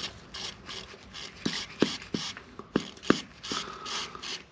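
Aerosol can of WD-40 spraying penetrating lubricant through its straw in short hissing bursts, about two a second, onto the ABS sensor's retaining bolt to free it. A few sharp clicks come in the middle.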